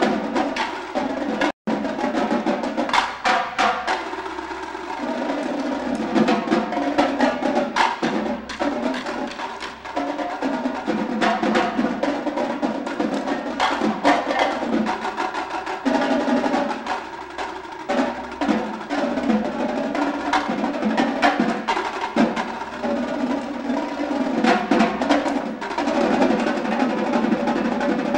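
Drum corps drumline of snare drums and tenor drums playing a fast, dense percussion passage of sharp stick strokes and rolls. The sound cuts out for an instant about one and a half seconds in.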